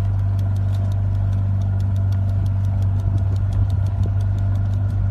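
Motorboat engine running steadily: a low hum with a fast, even ticking over it.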